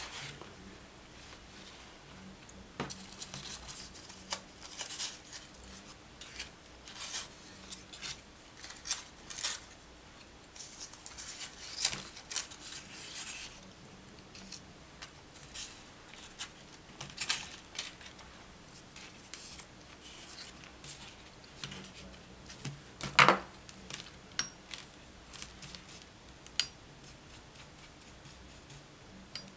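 Intermittent light rustles, scrapes and taps of hands handling damp crepe paper petals and a paper towel on a tabletop, with one sharper click a little past two-thirds of the way through.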